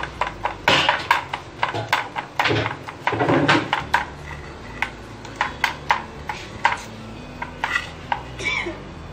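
Knife chopping ginger on a cutting board: a run of quick sharp taps, several a second, thinning out in the second half.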